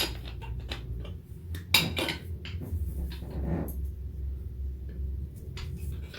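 Scattered clinks and knocks of hard objects being handled, the sharpest right at the start and about two seconds in, over a steady low hum.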